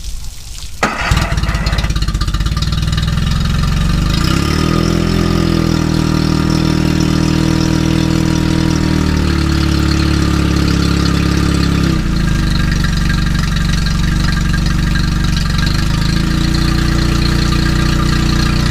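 A 2003 Yamaha 25 hp four-stroke outboard, a two-cylinder engine, starts about a second in and runs steadily in neutral on flushing muffs. Its speed rises slightly about four seconds in and settles back around twelve seconds. This is the run test of a newly replaced water pump impeller, and the pump is working.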